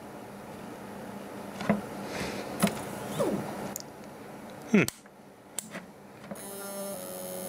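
Spindle motor of an opened WD Green hard drive, its heads removed, powered up and trying to turn: a steady hum, a few clicks and two short falling whirs, then a buzzing tone near the end. The drive's firmware will not let the motor spin the platters up.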